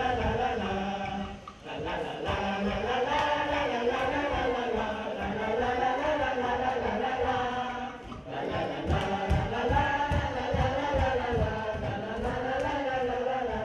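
A group of children singing a chant-like traditional game song together in unison, in long phrases with short breaks about a second and a half in and about eight seconds in.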